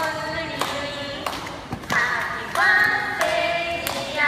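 A group of people singing together without instruments, clapping in time about every two-thirds of a second.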